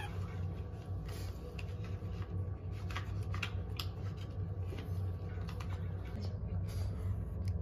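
Scattered light clicks and scratches of a Chihuahua puppy's claws on the wire bars of its playpen and the pad inside, over a steady low hum.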